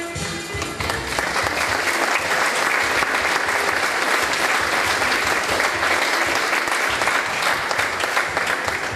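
Audience applauding over music; the applause rises about a second in and stays dense throughout.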